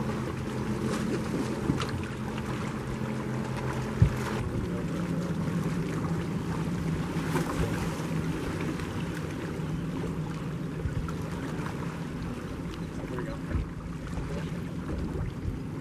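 Steady low hum of the boat's bow-mounted electric trolling motor, its pitch shifting slightly about four seconds in, with wind on the microphone and water lapping. A single sharp knock about four seconds in.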